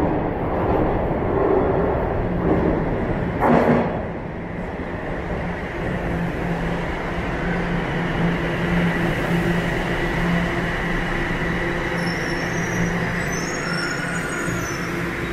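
TTC subway train pulling into the station, a steady rumble of motors and wheels as it slows. A single loud clack comes about three and a half seconds in, and faint high brake squeals near the end.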